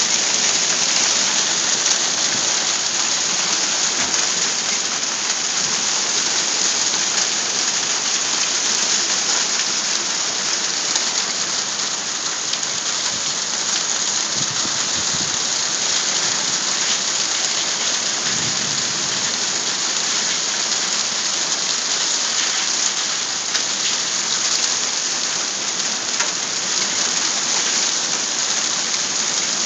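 Hailstorm with heavy rain: hail and rain pelting down in a dense, steady patter and hiss with no let-up.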